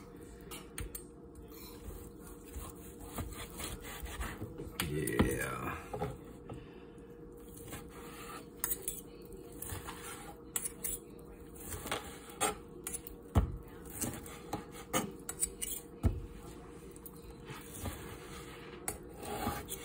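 Kitchen knife sawing through a cooked porterhouse steak on a plastic cutting board: repeated rubbing strokes with scattered sharp clicks of the blade and fork against the board, over a faint steady hum.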